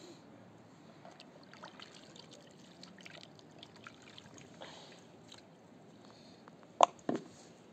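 Hands working through fruit in a plastic tub of water: small splashes and trickling as the fruit is stirred and scooped. Near the end, two loud sharp knocks a fraction of a second apart.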